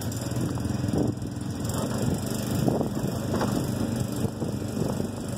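Shrimp boat's engine running steadily, a low hum.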